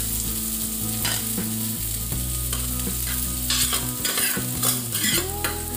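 Steel ladle scraping grated coconut off a steel plate into a hot pan of coconut pieces fried in coconut oil: irregular metal scrapes and knocks over a light sizzle.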